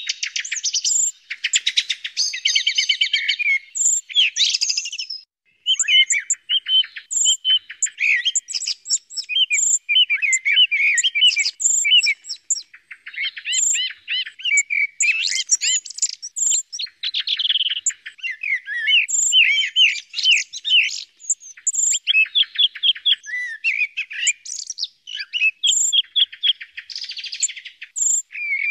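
Recorded songs and calls of the Eurasian blackbird and the song thrush, a track made for electronic bird callers: an unbroken run of quick chirps, rapid trills and warbled phrases repeated one after another.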